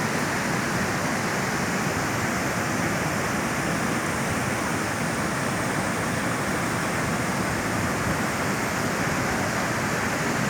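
Mogi Guaçu river rushing over the rocks of the Cachoeira de Emas falls: a steady, unbroken noise of falling water.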